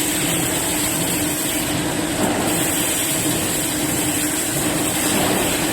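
Robotic arc welding in progress: a steady hiss of the welding arc with a low steady hum underneath.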